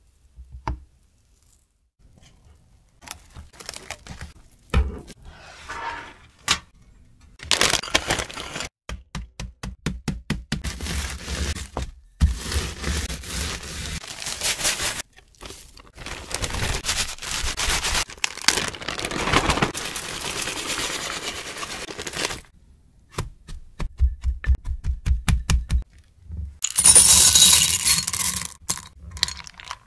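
Kitchen handling sounds: scattered clicks and knocks, then Oreo cookies crushed in a plastic bag, crackling and crunching with plastic rustle through much of the middle. Near the end comes the loudest sound, a shower of dark chocolate couverture discs clattering into a glass measuring jug.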